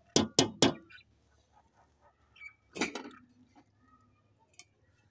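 Metal spoon knocking against the rim of an aluminium pressure cooker of wheat daliya: three quick sharp clinks in the first second, then one more near the middle with a short ring.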